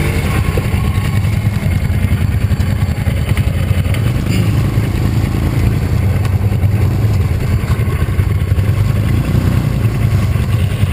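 Polaris Trailblazer 250's single-cylinder two-stroke engine running steadily while the quad sits stuck in mud with its wheels spinning.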